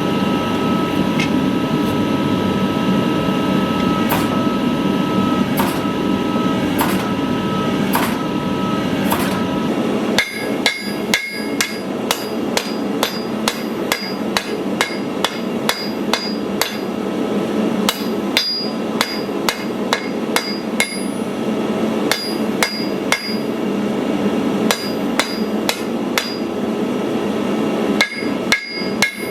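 Hand hammer striking steel being forged into a sword blade, in a steady rhythm of about one and a half ringing blows a second. For the first third the strikes are few and sit under a steady loud roar; then the roar drops away and the hammering takes over.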